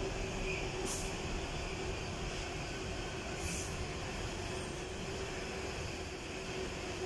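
Class 390 Pendolino electric train at the platform, giving a steady hum with a faint steady whine. Two brief high hisses come about a second in and again midway.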